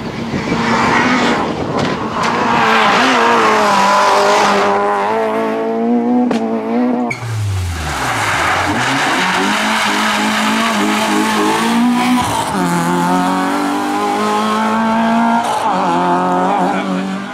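Rally car engines at full throttle, revving high with the pitch climbing and then dropping at each gear change. After a break about seven seconds in, a Peugeot 106's four-cylinder engine revs hard through a corner and away.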